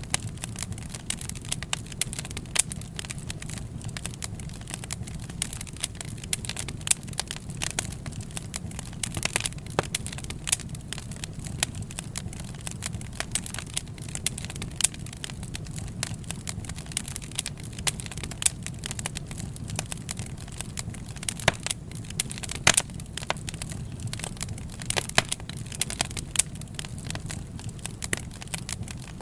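Wood fire crackling: frequent irregular sharp pops and snaps over a steady low rumble.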